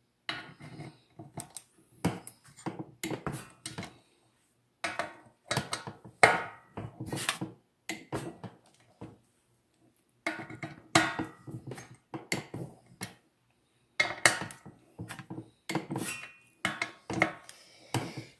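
Click-type torque wrench ratcheting and clicking on the crankcase cover bolts of a Briggs & Stratton 19 HP engine, in clusters of sharp metallic clicks with short pauses between bolts. The wrench's click is the sign that a bolt has reached its set torque of 220 inch-pounds.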